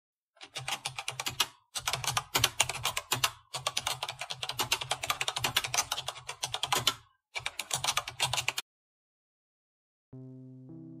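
Computer keyboard typing: rapid runs of key clicks broken by short pauses, stopping a little over two-thirds of the way through. About a second and a half later, background music comes in with a sustained chord.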